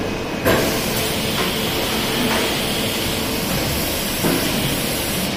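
Automatic four-side sealing packaging machine and injection moulding machine for plastic spoons running. They make steady machine noise with a few sharp knocks, the loudest about half a second in. A high hiss joins for the last two seconds.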